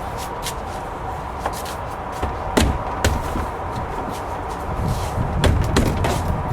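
Plastic resin shed panels knocking and clicking as they are pushed and fitted together by hand: several sharp knocks, the loudest a little before the middle and near the end.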